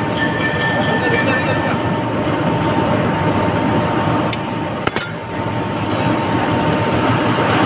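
Steady mechanical running noise with a thin whine, and two sharp metallic clicks about four and five seconds in.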